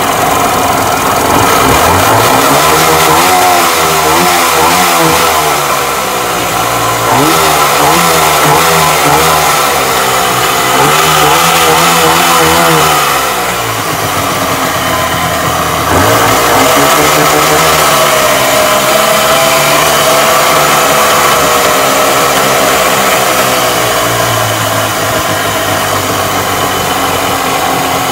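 Mercury outboard engine running with its cowling off, its revs rising and falling in several long swells as the Keihin carburettor is being adjusted. It holds a higher speed for a longer stretch in the second half, then settles lower near the end.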